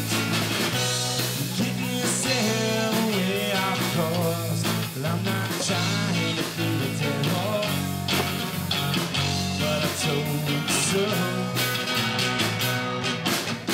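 Live rock band playing: electric guitar lines with pitch bends over electric bass and a drum kit.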